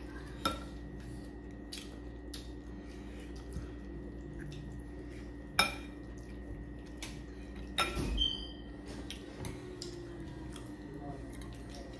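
Utensils clinking on tableware: a serving spoon knocking against a glass bowl of soup and spoons on plates, in scattered light clinks with a few sharper ones.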